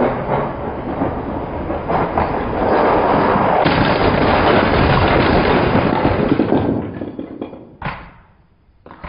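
Loud rushing, rumbling noise as a LEGO train races through a crossing. It dies away about seven seconds in, and a single sharp knock follows near the end.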